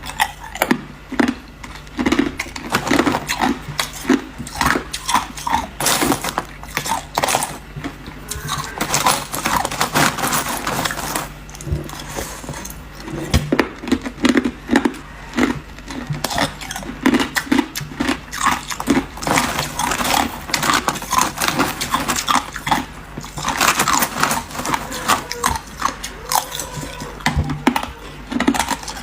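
Close-miked chewing of ice: a person biting and crunching ice in the mouth, in dense runs of sharp crunches with brief pauses between bites.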